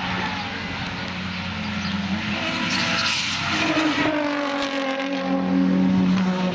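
Drift car's engine revving hard, its pitch rising and falling as the driver works the throttle, with tyres screeching as the car slides sideways; the tyre noise is loudest about three seconds in.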